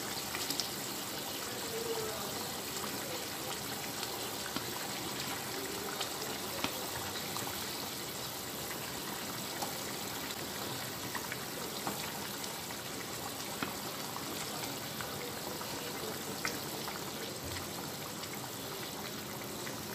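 Potato curry gravy bubbling at a steady boil in a pan on the stove, with a few light clicks scattered through it.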